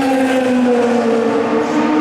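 Race car engine at trackside, its note falling steadily as it passes or slows, with a second, higher engine note coming in near the end.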